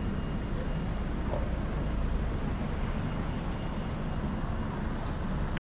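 Steady outdoor city ambience with a low rumble.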